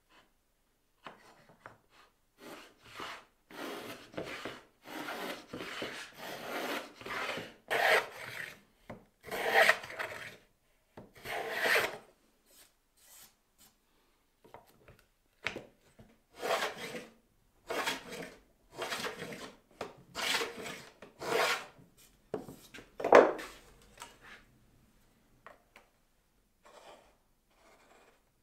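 Wooden plough plane cutting a groove along a thin wooden strip: a run of short strokes of the iron shaving the wood, a brief pause about halfway, then another run, the strokes stopping a few seconds before the end.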